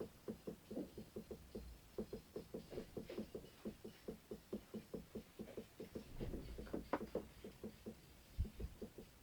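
A person clacking their teeth together in a fast, even run of small knocks, about six a second.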